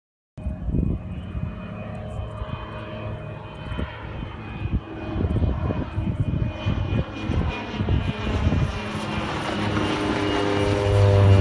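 PAC P-750 XSTOL turboprop flying over at low altitude, its engine and propeller drone growing louder and steadier toward the end, with the pitch starting to drop as it passes.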